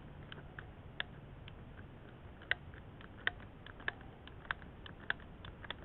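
Utility knife shaving the cut end of a plastic pipe to straighten it: a series of faint, short, sharp clicks, about one every half second, irregularly spaced.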